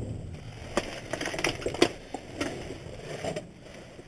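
Rummaging through discarded goods in a dumpster: packaged items and packaging being handled and shifted, giving a string of irregular clicks and knocks over a light rustle.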